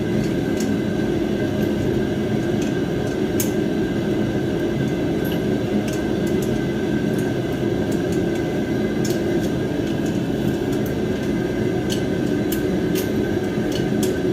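Propane shop heater running, a constant low rushing noise with a thin steady whine above it. Scattered faint light clicks sound over it.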